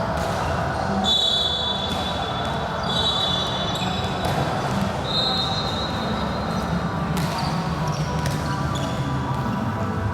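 Sports-hall game sounds: a steady murmur of spectators' voices, with a ball bouncing on the court and several high squeals, the longest lasting about two seconds.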